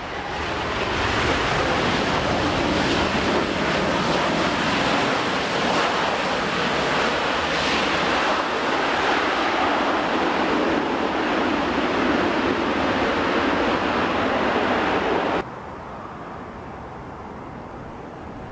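Airbus A380 jet engines making a loud, steady rushing roar as the airliner rolls out on the runway after touchdown. The noise cuts off abruptly about fifteen seconds in, giving way to a quieter, steady jet noise from another A380 on approach.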